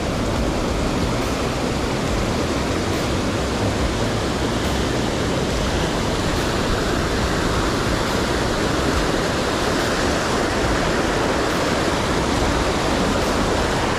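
Rushing white water of a rocky stream rapid: a steady, even rush of water.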